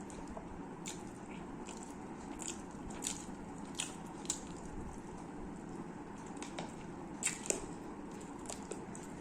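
A person chewing food close to the microphone, with irregular short wet mouth clicks and smacks over a steady background hum.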